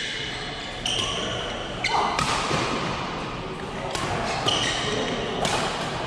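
Badminton rally: rackets striking the shuttlecock several times at irregular intervals, and court shoes squeaking in short high chirps, over background voices.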